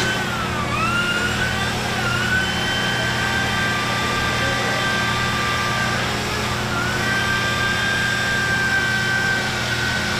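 Woodworking machinery running: a steady low hum under a high whine that dips in pitch twice and climbs back, the way a motor bogs briefly under load.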